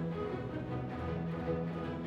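Background music played by orchestral strings, moving slowly from one long held note to the next.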